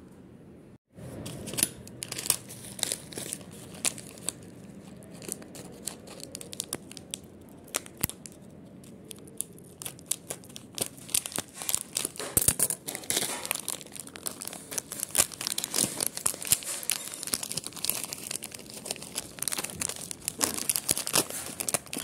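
Plastic packet of craft shells crinkling and rustling as it is cut open and handled: a dense run of small crackles that grows busier about halfway through.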